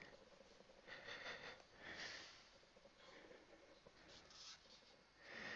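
Near silence: room tone with a few faint, short noises.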